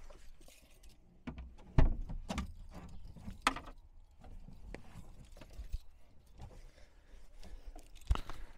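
VW Polo hatchback's boot latch releasing from inside the car with one loud clunk about two seconds in, followed by lighter clicks and knocks as the lid comes open and the car is handled. Another knock comes near the end.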